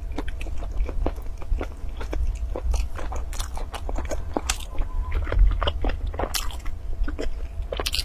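Close-miked eating of a crusty, cheese-topped bread pastry: tearing, biting and chewing, with many small crisp crackles and crunches.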